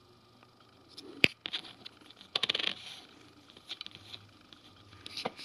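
Metal coins handled on a paper sheet: a sharp click about a second in, then scraping and rustling as they are shifted over the paper, with a few lighter clicks later.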